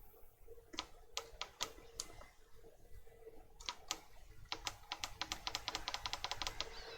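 Power button on a Lowrance HDS7 chartplotter/fish finder being pressed over and over, each press a small click. A few spaced presses come first, then a quickening run of about five clicks a second near the end. The unit doesn't power up, a sign of the faulty power-button switch membrane.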